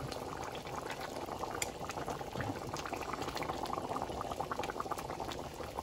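A pot of red palm oil soup bubbling steadily at the boil, with many small pops from the bubbles breaking.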